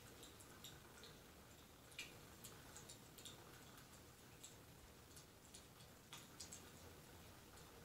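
Crackling fire: a soft, steady hiss with irregular sharp pops and crackles, the loudest about two seconds in.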